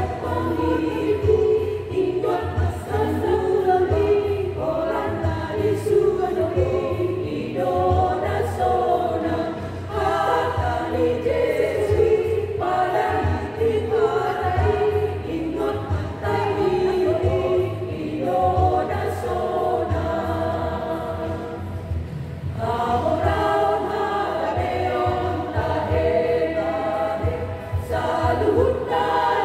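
Women's choir singing a church hymn in phrases, with short breaths between them.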